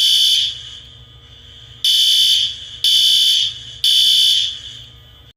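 School fire alarm sounding in loud, repeated high-pitched blasts about once a second, each one fading away. One blast is skipped about a second in, and the alarm cuts off abruptly near the end.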